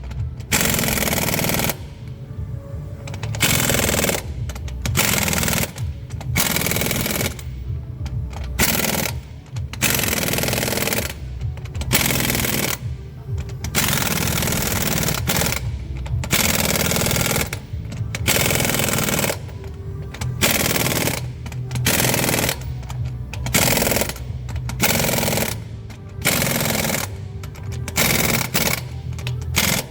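Power impact wrench running in repeated short bursts, each about a second long with brief pauses between, over a steady low rumble.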